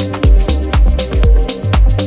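Electronic dance music: a steady four-on-the-floor kick drum about twice a second over deep bass, with bright hi-hats between the kicks and held synth tones.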